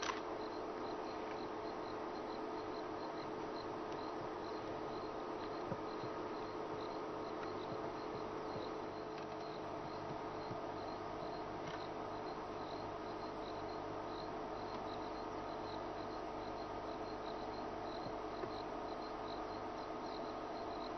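Insect chirping steadily, a high chirp repeated about twice a second, over a faint steady hum.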